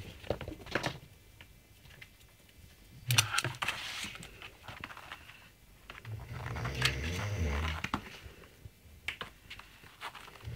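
Sleeping ferret snoring: a short low breath about three seconds in and a longer snore from about six to eight seconds, with faint rustling and clicks between them.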